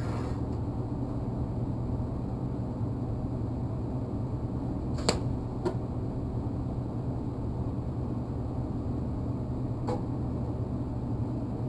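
TIG flash-tacking: a welding machine hums steadily while the torch's arc is struck in two brief sharp cracks about five seconds in, a little over half a second apart, with a fainter crack near the end.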